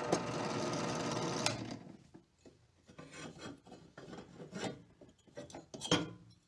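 Drill with an 8mm bit boring out a bolt hole in a motorcycle cylinder head, a steady grinding cut that stops about a second and a half in. Then intermittent scraping and handling sounds, with a sharp click near the end.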